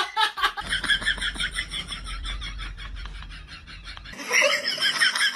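An animal's rapid, evenly repeated short high calls, about seven a second. About four seconds in, the sound cuts abruptly to another run of similar rapid calls.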